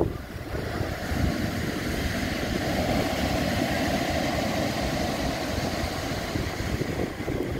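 Sea waves breaking and washing up a shingle beach: a steady rushing surf that swells to its loudest around the middle and eases toward the end.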